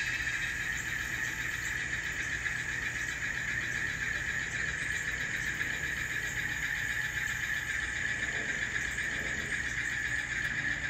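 ESU LokSound sound decoder playing an Alco diesel engine sound through the N scale Alco C420's small onboard speaker as the model pulls its train slowly. A steady, thin drone with a low hum underneath and its strongest part high up.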